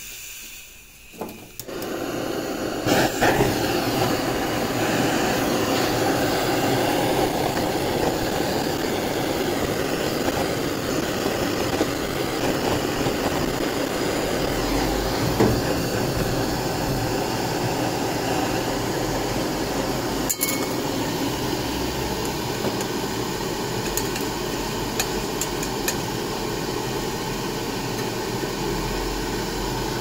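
Two handheld butane torches coming on within the first three seconds, then burning with a steady hiss as they heat a titanium knife scale red-hot.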